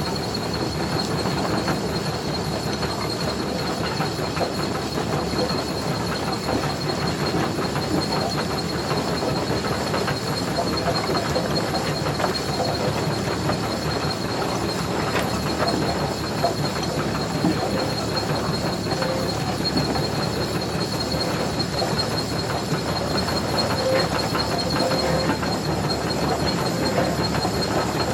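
Tractor running steadily: a dense mechanical rattle with a constant high-pitched whine over it.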